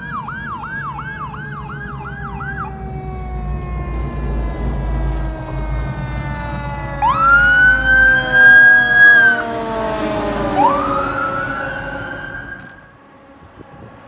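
Fire apparatus sirens on an emergency response. A fast electronic yelp plays for the first couple of seconds, then a long slowly falling wail. Sharp rising wails come in about seven and ten seconds in, over the low rumble of the truck's engine as it passes, and the sound drops away about a second before the end.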